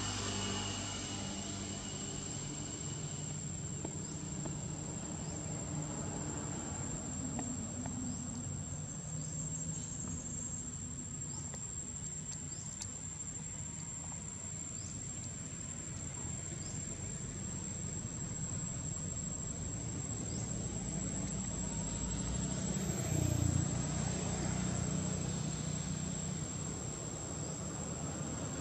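Steady high-pitched insect drone, like cicadas or crickets, holding one thin note throughout, over a low, even outdoor rumble that swells briefly about three-quarters of the way through.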